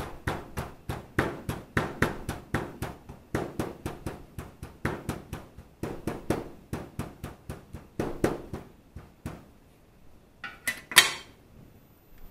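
A hammer repeatedly striking cooling-system seal tablets folded inside a shop towel on a workbench, a fast, even run of blows about four a second that crushes the tablets to powder. The blows stop about nine seconds in, and near the end the hammer is set down with a loud metallic clank in a steel parts tray.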